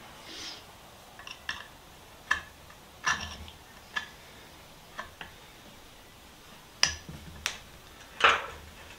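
Irregular light clicks and taps of a screwdriver working a small screw loose from the side of an old wooden spirit level, about ten in all, with the two loudest near the end.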